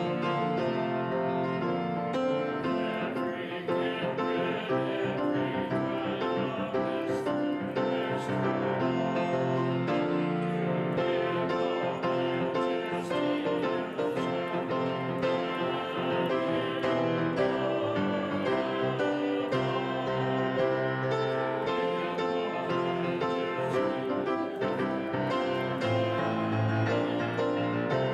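Grand piano playing continuously.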